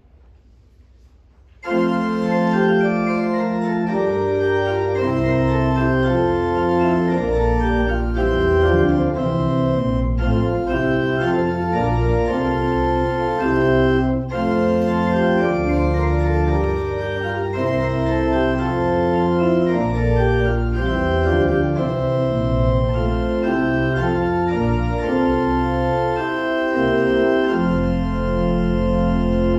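Church organ playing sustained full chords, coming in suddenly after a brief hush, with deep bass notes joining a couple of seconds later.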